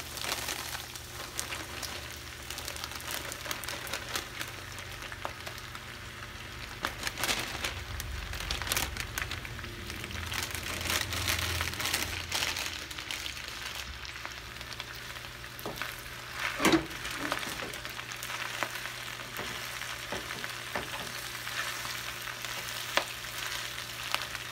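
Sliced sausage frying in oil in a skillet: a steady sizzle with scattered crackles. Spinach is added and stirred in with a spatula, and there is one louder knock about two-thirds of the way through.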